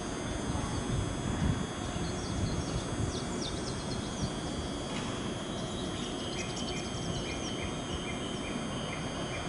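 Low steady rumble of the JR East E493 traction car slowly approaching on the curved track, with small birds chirping over it; a short run of evenly spaced chirps comes about six seconds in.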